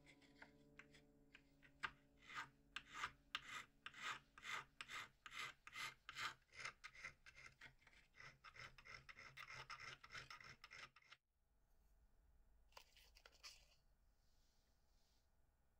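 Needle file rasping back and forth over the soldered metal claws of a small copper-tube owl foot held against a wooden bench pin: a run of quick scraping strokes, about two to three a second, that stops abruptly about eleven seconds in.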